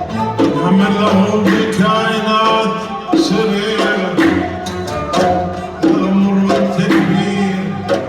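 Gulf sawt music: hand drums strike a repeating rhythm under sustained melodic instruments.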